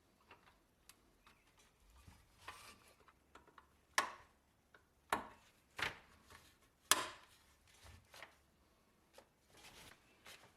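Irregular sharp knocks and taps, with four louder strikes bunched together in the middle few seconds.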